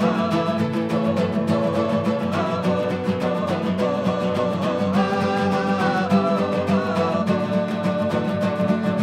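Two nylon-string classical guitars strummed in a steady rhythm, with a man and a woman singing a melody over them.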